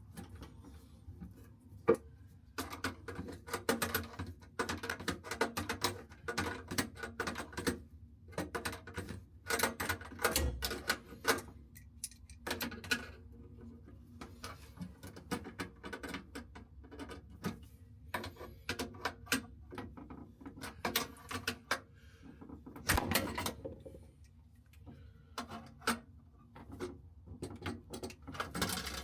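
Irregular clicking and clattering of small hard objects being handled, with a sharp knock about two seconds in.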